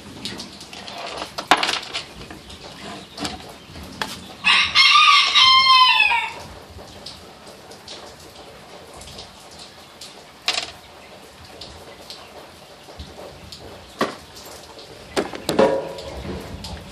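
A rooster crows once about four seconds in, a loud call of under two seconds that drops in pitch at the end. A few short, sharp clicks are heard around it.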